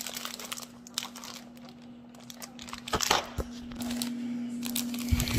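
Clear plastic wrapping around a sewing kit's plastic case crinkling and crackling as it is handled and pulled open, with a cluster of louder clicks about three seconds in.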